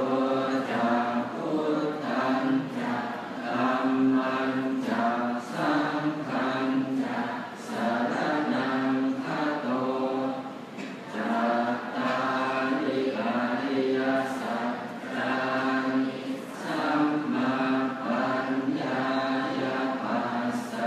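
Thai Buddhist monks chanting in unison at the morning devotional service (tham wat chao), reciting on a near-steady pitch with short pauses every few seconds.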